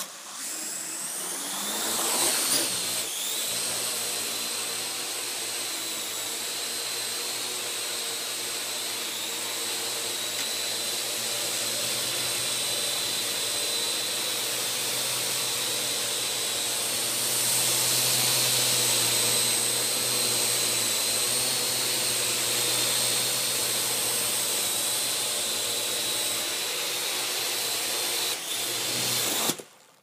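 Parrot AR.Drone 2.0 quadcopter's four electric motors and propellers spinning up with a rising whine at take-off, then a steady high-pitched buzz while hovering, a little louder for a few seconds past the middle. The motors cut off suddenly at landing near the end.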